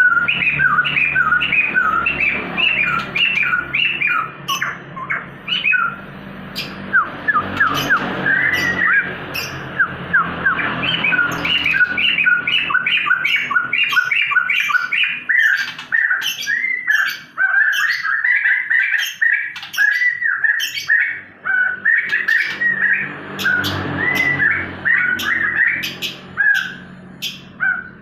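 A crested bird calls continuously in quick, repeated short notes, some sliding up or down in pitch. It is a lure recording meant to set a crested bird that has stopped singing calling again.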